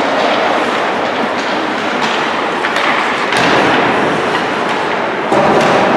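Loud, steady din of an ice hockey arena during play, with the wash of crowd and on-ice noise echoing in the rink and a few sharp clacks of sticks or puck.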